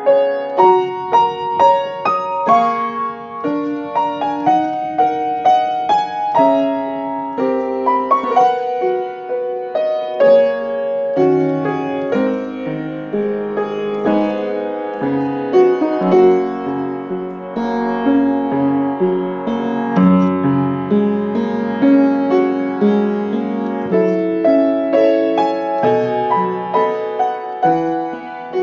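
Solo piano piece being played by hand: a continuous stream of melody notes over chords.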